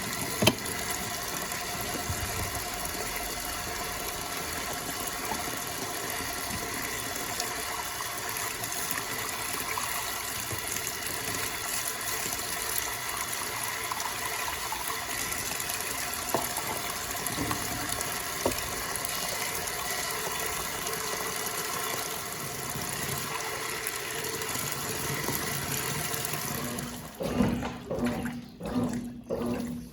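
Water running steadily into a 1996 Brastemp Clean top-loading washing machine as it fills. About 27 seconds in, the even rush gives way to a steady low hum and rhythmic sloshing.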